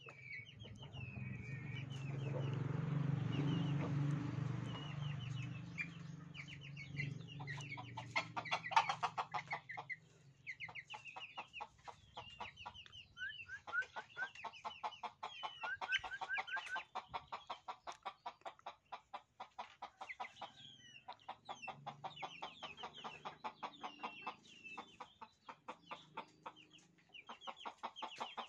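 Chickens clucking in long runs of quick, short calls, with higher chirps over them. A low rumble is loudest during the first six seconds.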